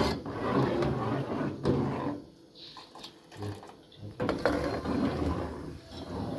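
Metal ladle stirring a pot of liquid and scraping against the aluminium pot in repeated strokes, with a quieter pause in the middle.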